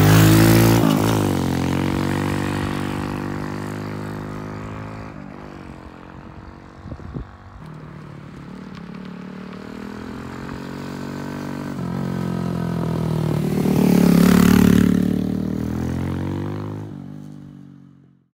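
Small motorcycle engine (AJS Raptor DD50E) running under way. It is loud at first and dies away, then builds to a second loud peak about fourteen seconds in before fading out. There is a brief clatter about seven seconds in.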